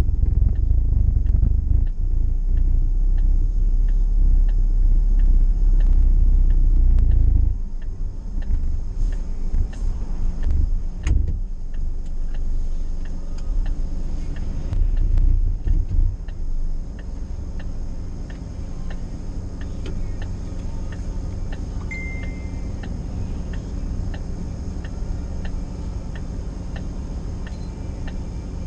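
Car driving at road speed heard from inside the cabin: steady low tyre and engine rumble, which drops noticeably about seven seconds in and stays lower.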